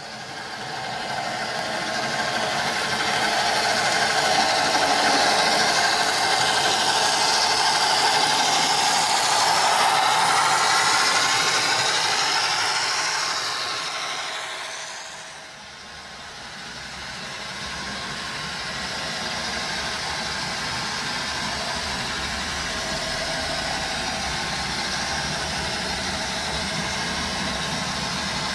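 A vehicle passing by, swelling for about ten seconds and fading away about fifteen seconds in, followed by a steadier engine-like running sound.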